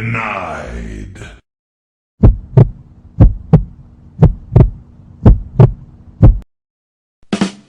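Heartbeat sound effect: paired low lub-dub thumps, about one pair a second, five times, over a faint steady hum. It is preceded by a brief effect with sliding pitch at the very start.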